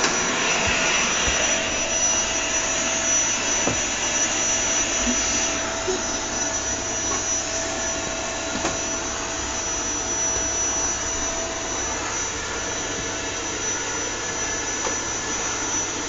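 Household vacuum cleaner running steadily: an even rushing noise with a thin high whine over it, easing slightly about six seconds in.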